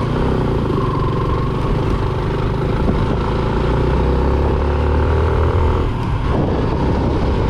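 Motorcycle engine running steadily while riding, over a heavy low rumble; the engine note dips briefly about six seconds in.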